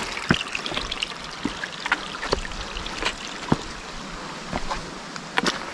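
Water trickling and running along a wet, rocky hiking trail, with irregular sharp knocks of footsteps on the rocks.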